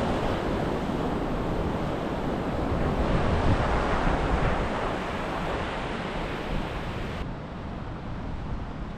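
Ocean surf washing on the beach, with wind on the microphone. The wash swells about three to four seconds in, then slowly eases.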